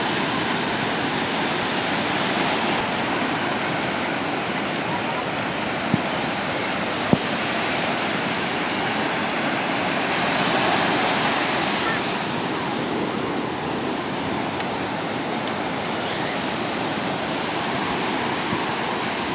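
Sea waves washing in as a steady surf rush, with one wave swelling louder a little past halfway. Two brief clicks sound near the middle.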